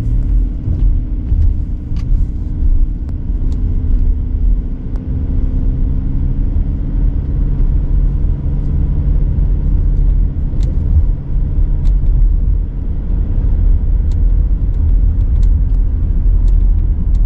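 Nissan T32 X-Trail on the move, a steady low road rumble with a hum, and faint, irregular clicks here and there. The clicks are the cold-weather clattering and creaking noise being investigated.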